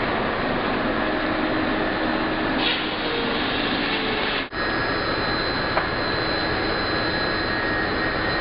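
Steam-powered sawmill machinery running: a steady mechanical din with a constant high whine. The sound drops out for an instant about halfway through.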